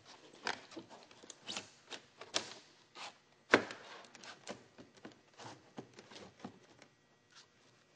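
Faint, irregular taps, clicks and scrapes of a stone-coated metal flashing sheet being handled, pressed down and tucked against roof tile and a wooden chimney side, with one sharper tap about three and a half seconds in.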